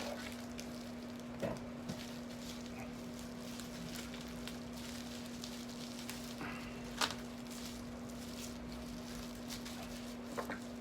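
A steady low electrical hum, with a few sharp clicks and light rustles as hot sauce bottles and their wrapping are handled, one near the start, one in the middle and one near the end.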